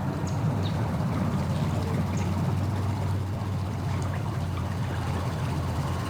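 Boat motor running steadily at low speed with a low hum as the boat comes in to the ramp, water splashing around the hull.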